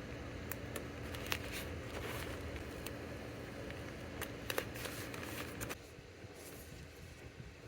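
Hands packing small stationery orders: paper and plastic rustling and shuffling, with scattered light taps and clicks. A steady background hum cuts off about six seconds in.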